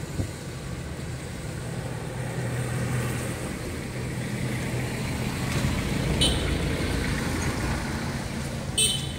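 Road traffic: a vehicle engine's low hum that swells and passes, with two brief sharp high sounds past the middle and near the end.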